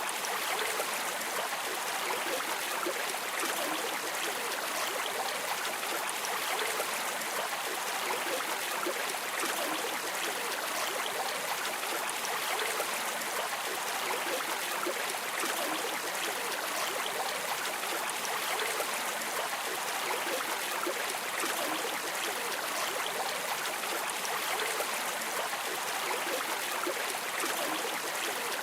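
River water flowing steadily, a constant rushing splash with no pauses or changes.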